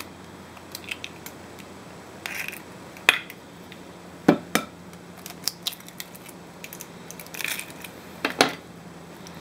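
Two eggs cracked one after the other on the rim of a glass mixing bowl: a few sharp taps of shell on glass, with the crackle of the shells being broken open.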